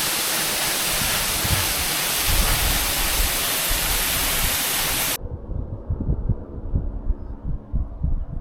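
La Grande Cascade waterfall pouring, a loud steady rushing that cuts off abruptly about five seconds in. After that there is only low, uneven rumbling from wind buffeting the microphone.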